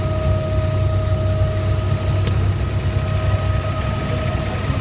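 An abra's engine, the wooden water taxi's, running steadily, heard from on board: a deep even drone with a thin steady whine above it.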